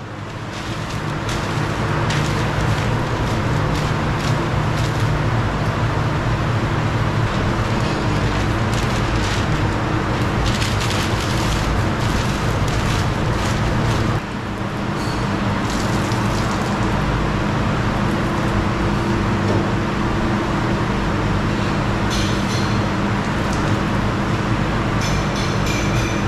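Steady loud roar of a commercial kitchen's gas burners and ventilation, with a low hum running under it. Paper crinkles now and then as it is pressed into a large aluminium pot.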